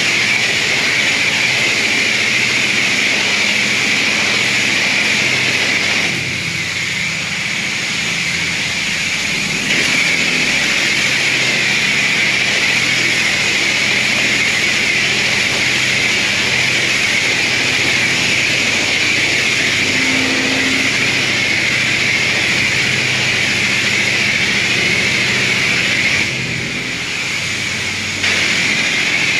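High-pressure car wash wand spraying down the bay, a loud steady hiss over a low pump hum, easing off briefly twice.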